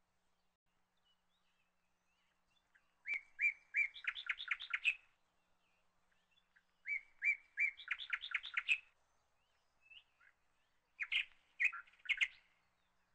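A bird singing: three phrases, each a few separate chirps running into a quick trill, repeated about every four seconds.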